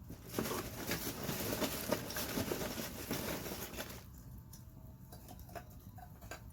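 Wood campfire crackling and popping, a dense run of crackles for the first few seconds that thins out to scattered single pops.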